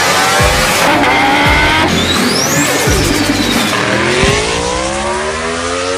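A high-revving sports car engine accelerating hard. Its pitch climbs and drops back at each upshift, about every second and a half. A high whistle sweeps up and back down in the middle, and near the end comes one long rising pull.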